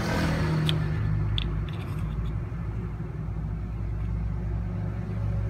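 Steady low motor-like hum and rumble, with a few faint light clicks in the first two seconds.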